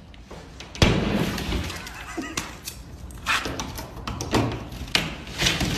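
Drywall being broken through: a sudden loud bang about a second in as the wallboard is punched, then a run of sharp cracks and crunching as the gypsum board breaks and crumbles.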